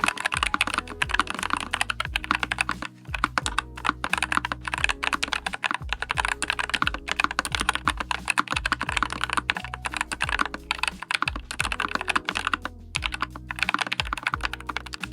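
Typing on a NuPhy Air75 V2 low-profile mechanical keyboard with Daisy switches: rapid, continuous keystrokes with a couple of brief pauses.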